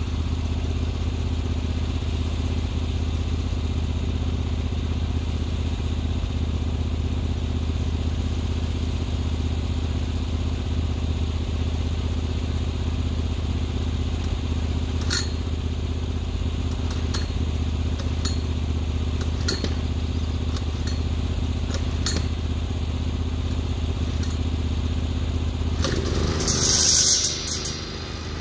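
Zero-turn mower's engine idling steadily. A few light metallic clicks come in the middle, and a brief louder burst of rushing noise comes near the end.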